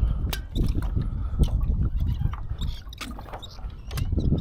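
Water lapping and sloshing against a kayak hull, with an uneven low rumble and several sharp knocks and clicks against the boat.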